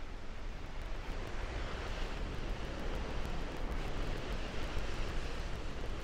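Steady rushing of a waterfall on the McKenzie River, with wind rumbling on the microphone; it grows a little louder about a second in.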